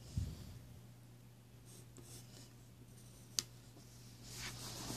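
A pen tip scratching faintly along paper as a line is drawn over, with a soft bump just after the start and a sharp click about three and a half seconds in.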